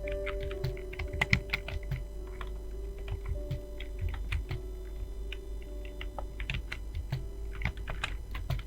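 Computer keyboard being typed on quickly and steadily, with keystrokes clicking in an uneven, continuous stream. Soft background music with held notes plays underneath.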